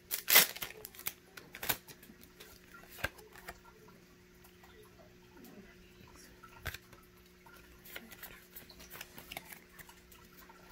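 Pokémon booster packs and cards being handled: scattered crinkles of foil pack wrappers and clicks of card stock, the loudest crackle about half a second in. A faint steady low hum runs underneath.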